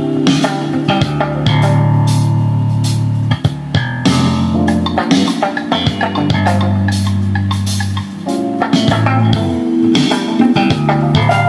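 Jazz track with bass guitar, guitar and drums, played back loud through a homemade 3-way speaker cabinet with twin 12-inch woofers, driven by 140-watt amplifier boards as a sound test.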